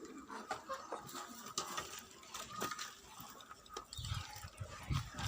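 Faint farm-animal calls among scattered small clicks and knocks, with a low rumble starting about four seconds in.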